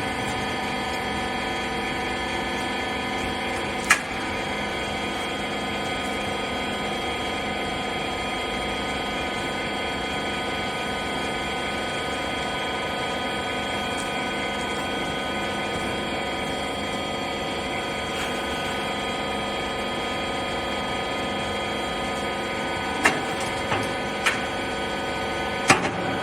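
Clothes/textile baler machine running with a steady machine hum made up of several constant tones. There is one sharp click about four seconds in and a few more clicks near the end.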